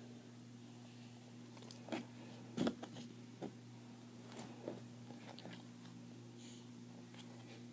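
Scattered small clicks and handling noises from craft materials being worked by hand, the sharpest about two and a half seconds in, over a steady low electrical hum.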